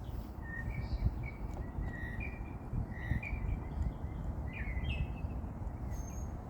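Small birds chirping again and again in short, quick calls over a steady low rumble of outdoor background noise.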